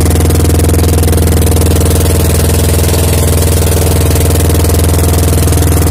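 Outrigger fishing boat's small engine running steadily at trolling speed, a loud, even drone.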